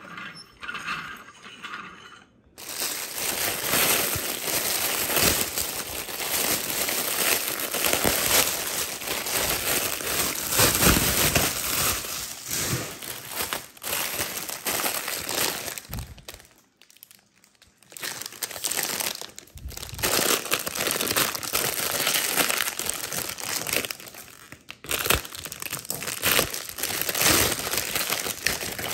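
Clear plastic bags crinkling and rustling as hands open them and handle the small plastic toy figures inside, breaking off for about a second past the middle.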